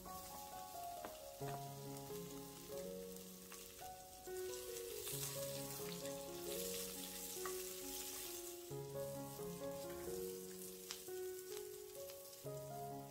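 Carrot and bell pepper strips sizzling in hot oil in a cast-iron skillet as they are sautéed. The sizzle grows strongest in the middle, with a few light clicks, over steady background music.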